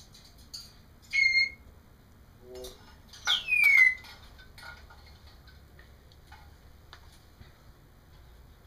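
African grey parrot whistling: a short steady whistle about a second in, then a louder whistle that glides down in pitch near the middle, followed by a few soft clicks.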